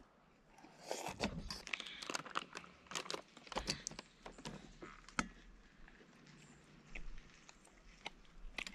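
Faint, scattered small clicks and crinkling rustles, irregular and spread through the whole stretch.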